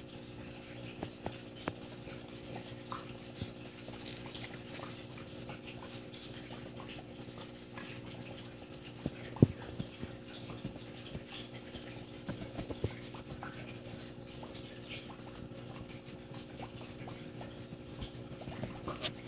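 Steady electrical hum of running aquarium equipment, with scattered faint clicks and one sharp click about nine seconds in.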